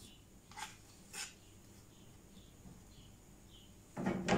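Chopped onion, garlic and chili being scraped off a cutting board into an enamelled roasting pan, heard as two short, soft swishes. Near the end a spatula comes down into the pan with a louder scrape and clatter.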